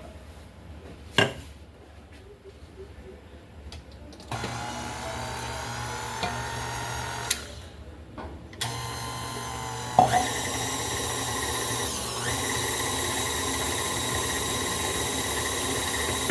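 A small electric kitchen appliance motor starts about four seconds in and runs with a steady whine. It cuts out briefly, starts again, then steps up slightly in level after a click near the ten-second mark.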